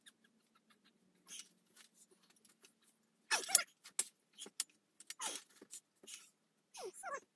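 Manual lever tube bender creaking and squealing in short strained bursts as a metal tube is forced around its bending die, with a couple of sharp metallic clinks about four seconds in.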